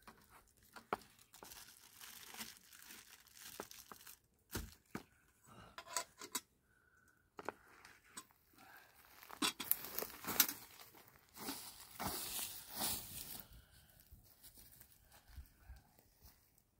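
Irregular crackling, snapping and rustling of dry twigs and brushwood at a small open wood fire, busiest in a run of crackles about ten to thirteen seconds in.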